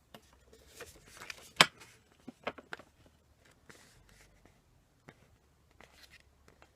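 Plastic snack packaging being handled and opened: irregular rustling and crackling with short clicks, and one sharp snap about a second and a half in.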